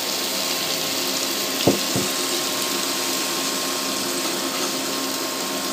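Egg Manchurian sizzling steadily in a nonstick pan as the sauce cooks down around the fried egg balls, with a faint steady hum underneath. Two light knocks about two seconds in.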